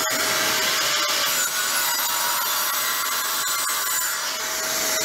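Evolution R255-SMS 10-inch sliding compound miter saw running at full speed with its blade cutting down through a board of ash hardwood: a steady whine under the loud noise of the cut.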